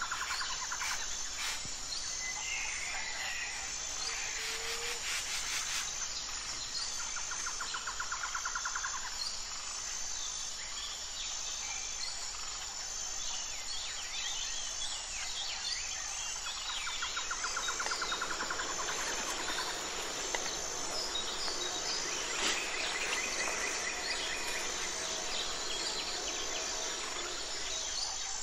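Forest ambience: birds chirping, with a rapid trill coming back three times, over an insect chirping steadily about once a second.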